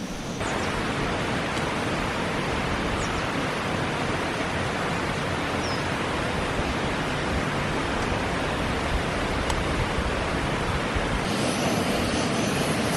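Pressurised liquid-fuel camp stove burning under a stovetop moka pot: a steady rushing noise that starts suddenly just after the pot is set on the burner, while the coffee heats. The sound changes near the end.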